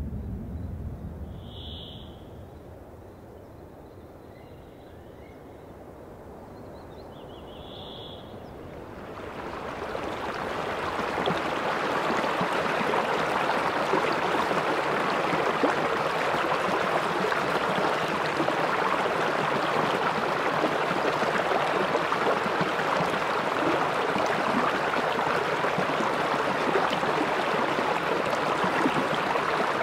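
Small forest brook running fast and splashing over a short drop, a steady rush of water that fades in about a third of the way through and then holds level.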